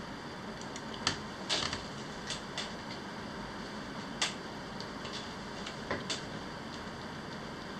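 Scattered light clicks of computer keys, about eight at irregular spacing, over a steady faint hiss.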